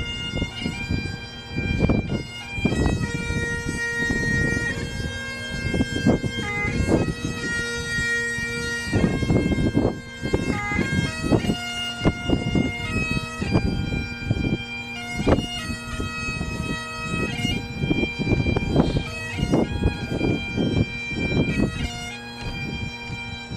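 Bagpipes playing a slow melody of held notes over steady drones, with a gusty low rumble of wind on the microphone.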